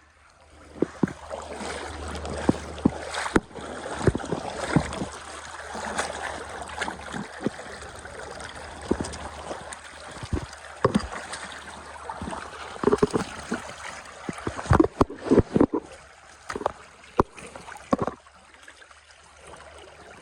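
Water splashing and sloshing in a river, with irregular knocks and thumps throughout, thickest a few seconds before the end.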